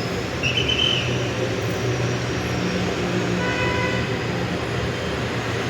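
City street traffic: a steady rumble of vehicle engines. A short high-pitched squeal comes about half a second in, and a brief pitched tone sounds a little past the middle.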